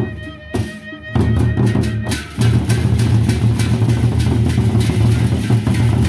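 Gendang beleq ensemble playing: large Sasak barrel drums beaten with sticks in fast, dense rhythmic strokes. The strokes come in hard about a second in after a short, quieter break, with one brief dip a little past two seconds.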